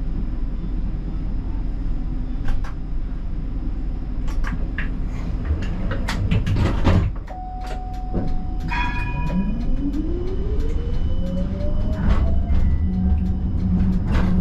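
Siemens Combino tram running on street track: a low rolling rumble with scattered clicks and knocks from the wheels. About nine seconds in, the whine of its electric traction motors rises steadily in pitch as the tram accelerates.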